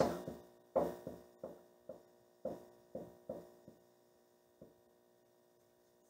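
Dry-erase marker squeaking on a whiteboard in about ten short strokes as a word is written, stopping after four or five seconds. A faint steady electrical hum underneath.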